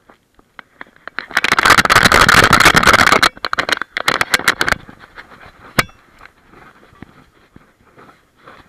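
Loud rushing, scraping noise on the microphone of a camera strapped to a German Shepherd. It starts about a second in, lasts about two seconds, then breaks into choppy bursts and a sharp click, and dies down to faint crackling.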